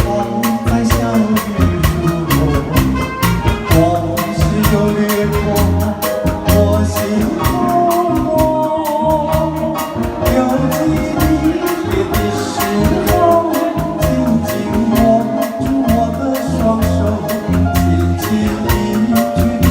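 Instrumental introduction of a song: backing music with a steady, even beat and a melody line, before the vocal comes in.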